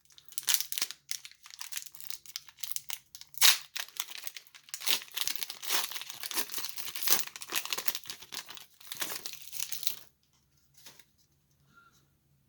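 Foil wrapper of a Pokémon booster pack crinkling and tearing as it is opened, a dense crackle with one sharper rip about three and a half seconds in; the crackling stops about ten seconds in.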